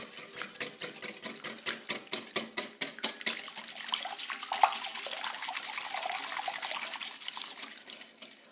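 Wire whisk beating a runny mixture of egg, melted butter and milk in a bowl: rapid clicks of the wires against the bowl for about the first three seconds, then a softer liquid swishing.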